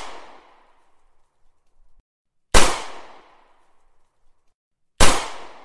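Recorded pistol gunshot sound effect, the .40 Smith & Wesson gunshot sample, fired twice about two and a half seconds apart, each a single sharp bang with a fading echo. The tail of an earlier shot fades out at the start.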